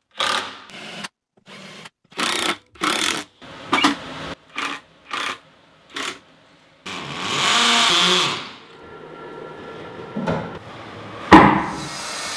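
Cordless drill driving screws into plywood in a quick run of short bursts. These are followed by one longer, louder run of a power tool, then a steadier machine sound with a sharp knock near the end.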